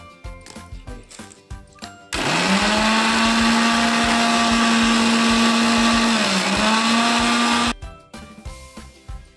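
Electric mixer-grinder motor grinding dry rusk biscuits into powder: it starts about two seconds in, spins up quickly to a loud steady whine, sags briefly in pitch near the end, then cuts off sharply.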